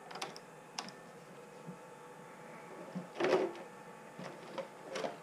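Small hand tools and plastic RC car parts clicking and clattering as the truck's front end is taken apart: a few sharp clicks, with the loudest clatter about three seconds in.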